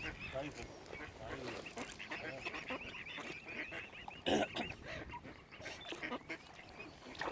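Waterbirds calling: a steady run of quick, high peeps from young birds, with lower honking and quacking calls under them and one loud, harsh call about four seconds in.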